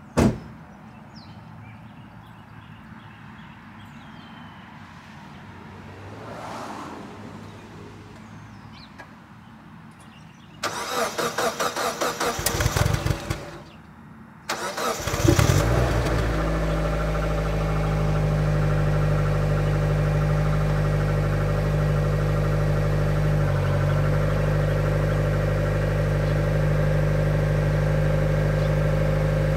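A sharp knock at the very start, then a Mazda Miata's four-cylinder engine cold-starting. The starter cranks rhythmically for about four seconds without catching and stops; a second crank catches about fifteen seconds in, the engine flares up briefly, then settles into a steady cold idle.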